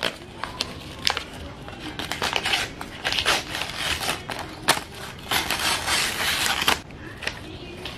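Wrapping paper being torn and pulled off a gift box by hand: crackling paper rustles and rips with sharp clicks, and a longer stretch of rustling near the end.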